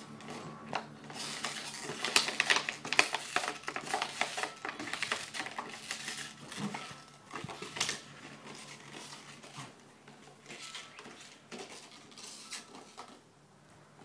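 A dog chewing and mouthing a plastic bottle: a quick run of sharp crackles and clicks, densest in the first half and thinning out later.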